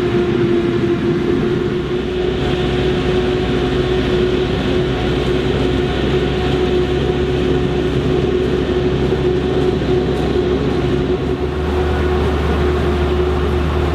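Claas Jaguar 960 self-propelled forage harvester chopping standing maize: a loud, steady machine drone with one constant humming tone from the spinning chopper and blower, over diesel engine noise. A deeper engine rumble grows near the end as the Fendt tractor pulling the silage trailer comes close.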